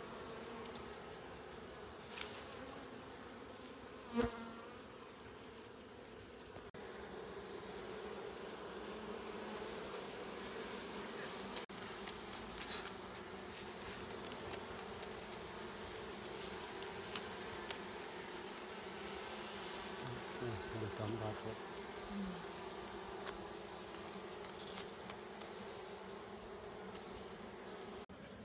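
Wild honey bees buzzing in a steady hum around their opened nest in a tree hollow, with a few sharp clicks and rustles as the honeycomb is handled.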